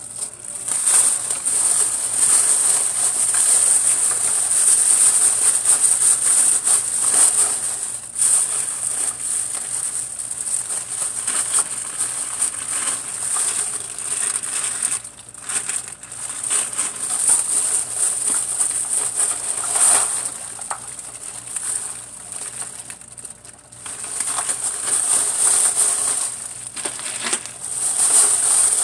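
Clear plastic bags full of empty plastic lip gloss tubes being handled and shaken, the bags crinkling and the tubes clattering against each other inside, with short lulls about halfway through and again later on.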